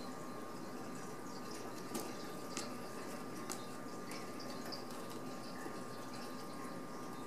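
Kittens scrabbling in a wicker basket: a few light clicks and scratches over a steady quiet room hiss with a thin hum.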